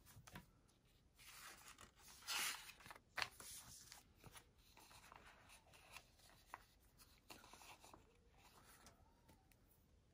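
Faint rustling and small clicks of a paper sticker sheet being handled as small date stickers are peeled off and placed in a planner. A louder rustle comes about two seconds in, followed by a sharp click.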